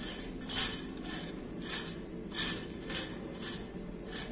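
A basting brush stroked over the stainless steel wire mesh of a fish grilling basket, oiling it, making a string of short scrapes and light metallic clinks, roughly two a second.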